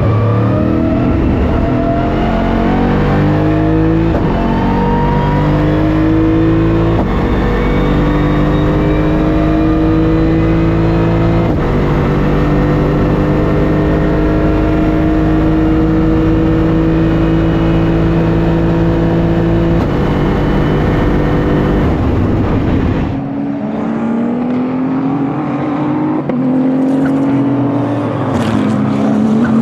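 Race car engine at full throttle pulling through the gears: the pitch climbs steadily in each gear and drops back at upshifts about four, seven, eleven and twenty seconds in. About twenty-three seconds in the sound cuts abruptly to another race car engine revving, with a few sharp crackles near the end.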